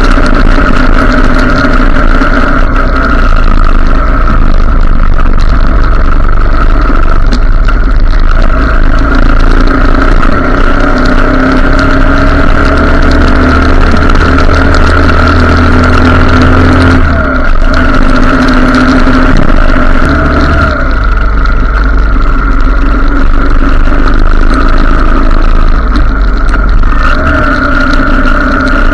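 Motorcycle engine running steadily while riding, loud and close, with small shifts in pitch around the middle as the speed changes.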